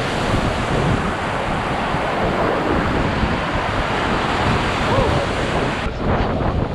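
Whitewater rapids rushing loudly around a paddle raft, with wind buffeting the microphone; about six seconds in the highest hiss drops away.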